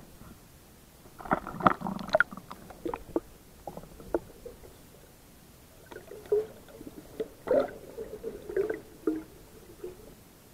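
Water splashing, sloshing and gurgling around a camera moving in and out of river water, with scattered knocks and clicks in two bursts of activity.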